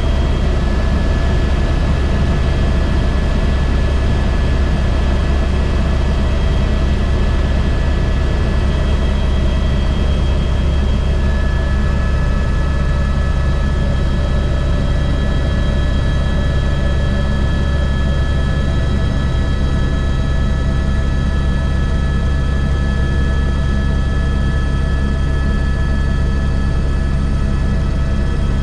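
Airbus H125 helicopter's main rotor and Arriel turboshaft engine running steadily, a deep rotor drone under a constant high turbine whine.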